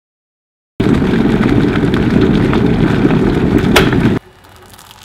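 Loud rumbling of wind buffeting the microphone. It starts suddenly about a second in and cuts off abruptly about three seconds later, leaving only faint clicks.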